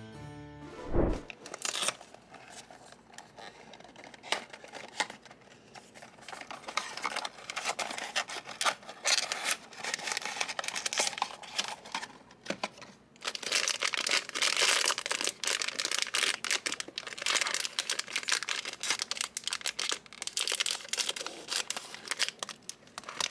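Blind-box packaging being torn open and handled: a dense, irregular run of crinkling and tearing that grows busier and louder partway through.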